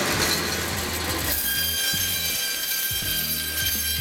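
Butcher's meat band saw running and cutting through a bone-in pork loin. It sounds rougher and noisier for about the first second, then settles into a steady whine over a low hum.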